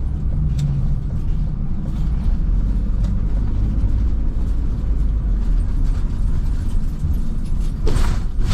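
Steady low engine and road rumble of a vehicle driving slowly, heard from inside the cab, with a few light clicks and a short loud rushing noise near the end.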